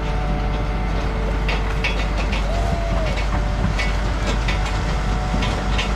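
Pumpkin harvesting machine running steadily with its conveyor, a low rumble under a steady hum. Irregular sharp knocks come from pumpkins being thrown onto the conveyor and knocking against it and each other.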